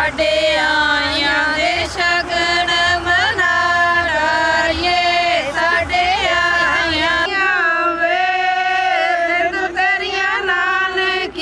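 Women singing a traditional Punjabi wedding folk song together in a chant-like melody of long held notes.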